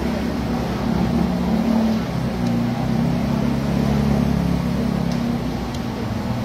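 An engine running steadily, a low hum whose pitch wavers slightly.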